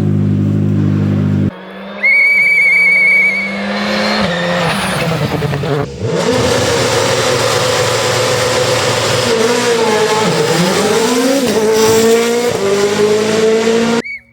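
Rally car engines: one held at steady high revs, then after a cut a brief high whistle, then a rally car running hard past, its engine pitch rising and falling through gear changes over loud tyre and gravel noise.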